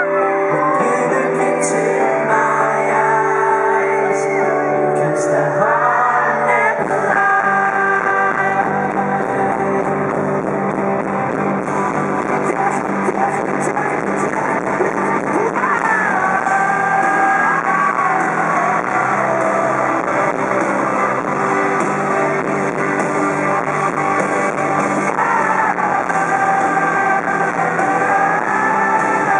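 Live pop-rock band with a male lead singer and electric guitar. It opens with sung lines over sustained chords, then the drums and bass come in about seven seconds in and the full band plays on with vocals.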